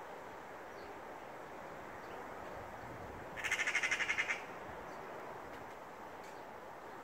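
A Eurasian magpie gives a rapid rattling chatter about halfway through, about ten harsh notes in a second, lasting about a second. This is the magpie's alarm chatter when mobbing a cat.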